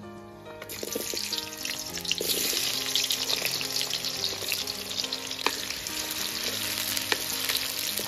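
Chopped red onions hitting hot oil in a steel wok and sizzling hard, the hiss starting about a second in, with a few sharp pops later on. Soft background music plays underneath.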